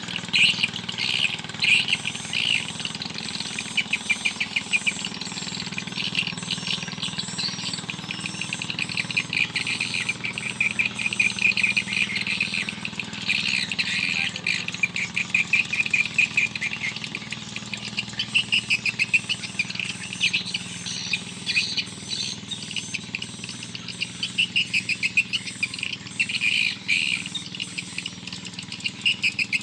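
Birds chirping in rapid, repeated trains of short high notes that keep on without a break, over a faint low steady hum.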